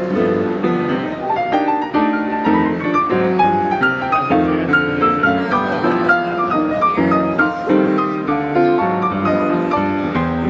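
Piano music playing continuously, a melody over chords with no pauses.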